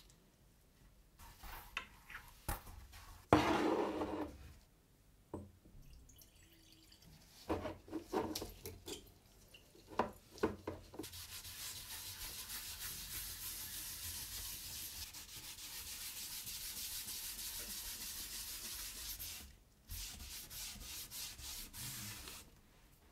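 A cloth pad is rubbed back and forth over vegetable-tanned leather, spreading liquid dye as a steady hissing swish that lasts about eight seconds in the second half and then comes again more briefly. Before that come handling knocks and one louder rustling burst.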